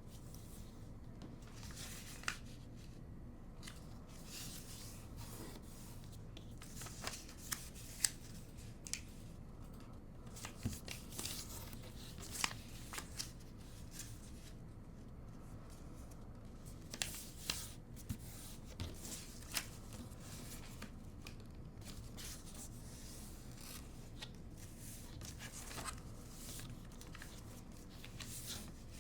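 A sheet of origami paper being folded and creased by hand, with short crinkling rustles coming in clusters, busiest in the middle.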